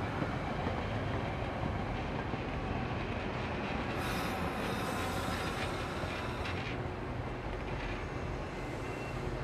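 Train running on its rails with a steady low rumble, and a patch of hissing higher noise for a couple of seconds about four seconds in.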